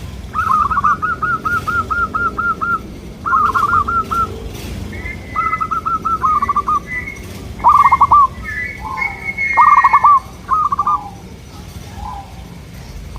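Zebra doves (perkutut) cooing in rapid trains of short, clipped notes. Several phrases follow one another with brief gaps, and the loudest phrases come about eight and ten seconds in.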